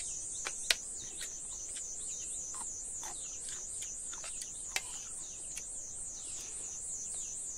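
Insects trilling in a steady high pulsing drone, with a few sharp clicks and taps scattered over it, the loudest less than a second in.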